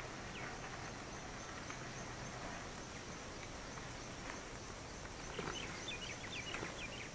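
Faint outdoor ambience: a steady high insect buzz with a regular pulse, and near the end a quick run of short high bird chirps.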